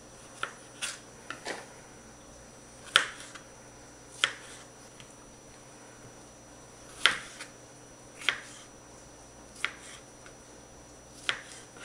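Kitchen knife slicing strawberries on a plastic cutting board: about ten sharp taps of the blade striking the board, spaced irregularly a second or more apart.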